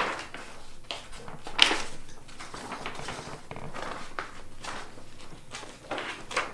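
Rustling and clicking from handling a large plastic toy and its packaging, with a sharper knock about a second and a half in.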